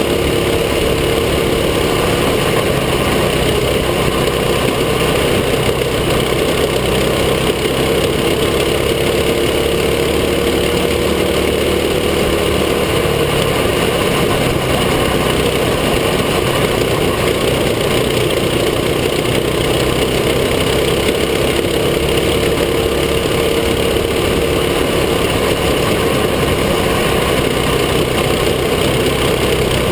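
Mini sprint (Ninja kart) engine running hard at race pace, heard on board the kart. A loud steady drone whose pitch wavers a little as the throttle changes through the bends.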